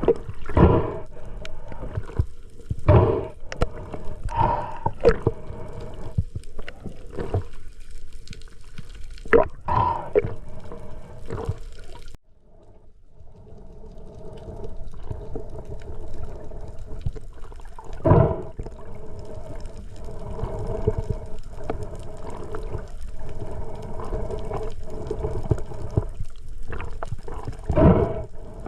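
Muffled water sloshing and gurgling around an underwater camera, with louder surges every second or two. It drops out suddenly about twelve seconds in and then builds back up.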